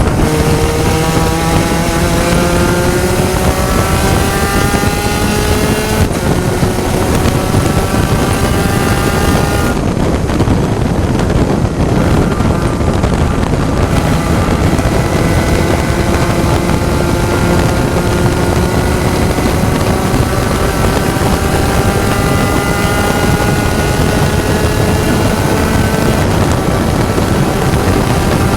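Spec Racer Ford race car engine at racing speed, its pitch climbing through the gears, dropping at upshifts about six seconds in and again near the end. It lifts off briefly around ten seconds in before accelerating again, over steady wind and road noise.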